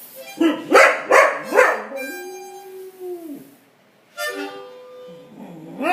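Boxer dog howling along to a harmonica: a quick run of three rising-and-falling yowls, then a long held note that sags away, and more yowls near the end, with harmonica notes underneath.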